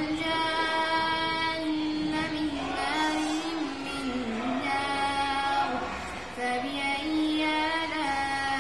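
A boy's voice reciting the Quran in a melodic, chanted tajweed style, holding long notes that waver and slide between pitches, with a brief break for breath about six seconds in.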